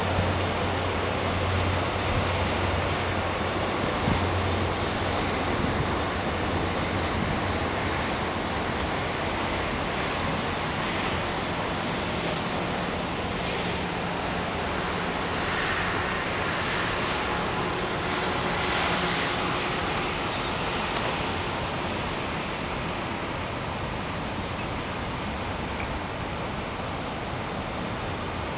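Steady hum of city road traffic, heard from high above, with no single vehicle standing out.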